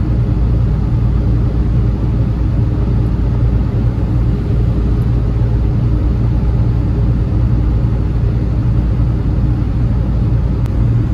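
Steady low drone of a semi-truck's engine and road noise, heard inside the cab while cruising on the highway.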